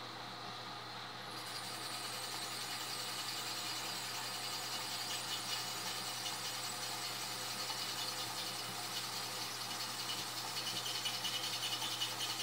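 Drill press motor running while its bit is fed into a stainless steel steak knife. A high-pitched scraping squeal of bit on steel starts about a second in and grows a little toward the end, as the bit struggles to cut the hard steel.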